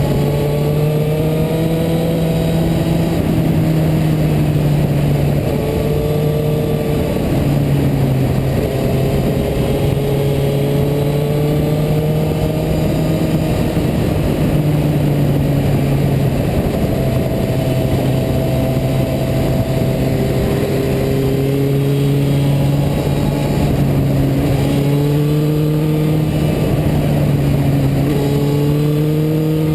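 Suzuki GSX-R750 inline-four engine running at a steady road speed, its pitch dipping and climbing back a few times, under a heavy rush of wind and road noise at the side fairing.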